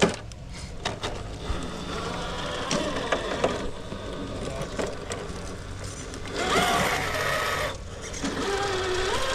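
RC rock crawler's electric motor and gear train whining as it drives, the pitch rising and falling with the throttle, with scattered clicks and knocks in the first half.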